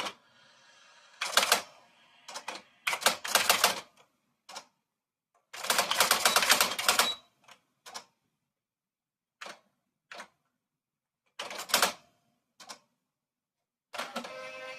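Typewriter being typed on: quick runs of key and typebar strikes with pauses between them, then a few single strokes spaced out. A steady ringing tone begins near the end.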